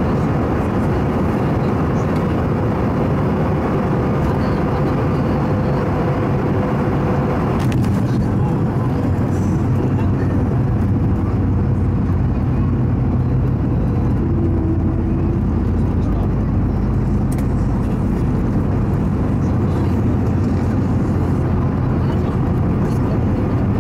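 Inside the cabin of an Airbus A220-300 on landing: steady airflow and Pratt & Whitney PW1500G engine noise, with a brief thump about eight seconds in as the wheels touch down. After that a deeper rumble of the landing roll follows, with the ground spoilers deployed.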